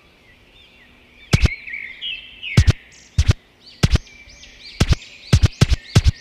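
About ten sharp clicks of TV remote buttons being pressed at uneven intervals, starting a little over a second in, over birds chirping steadily throughout.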